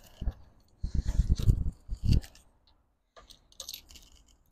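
Wind gusting on the microphone, a rumbling buffet through the middle, then scattered small clicks and rustles as the handlebar and its foam and plastic packaging are handled.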